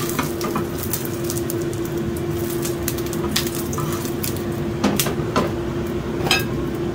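A wooden spatula scraping and knocking against a nearly empty frying pan, giving several separate clicks, over a steady hum and hiss.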